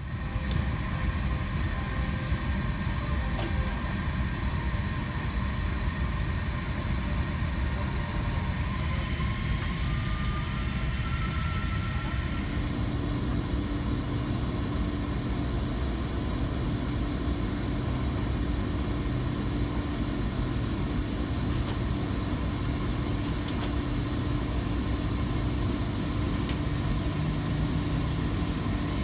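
Airbus A330-300 airliner's jet engines running with a steady low rumble; about twelve seconds in a steady hum joins and the higher noise grows.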